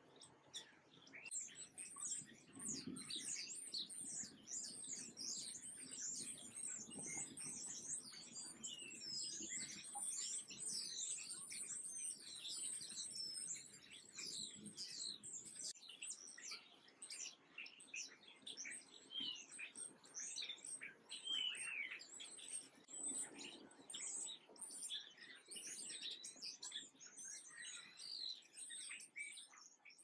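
A flock of sparrows chirping constantly, many short, high chirps overlapping one another, starting about a second in.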